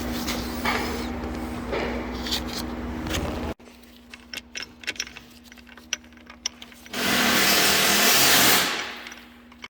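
Power drill running steadily while drilling out a broken bolt in an ATV engine case half, then a cut to light tool clicks and a loud hiss lasting under two seconds near the end.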